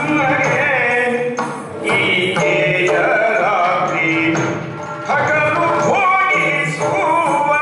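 Yakshagana song: a sung melody with long held, wavering notes over a steady low drone.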